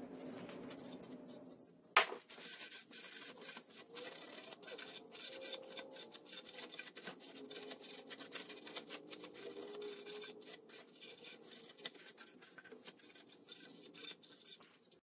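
Scratching and scrubbing of a hand tool on small metal hardware, with many small clicks: the outboard's lower-unit bolts being cleaned. One sharp click about two seconds in.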